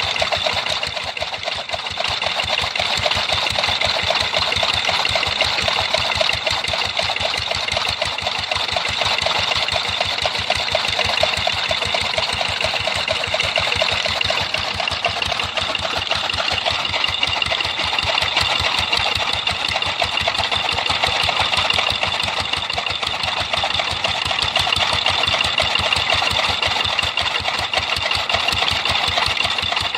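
An engine running steadily at an even speed, with a fast, regular knocking beat.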